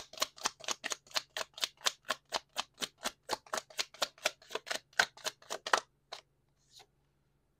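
A deck of tarot cards being shuffled from hand to hand, the cards snapping in a quick even rhythm of about four to five a second. The shuffling stops about six seconds in, leaving a few faint card sounds.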